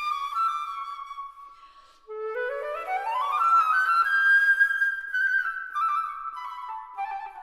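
Flute music: a phrase fades out, then about two seconds in a quick rising run of notes climbs to a held high note, which steps back down near the end.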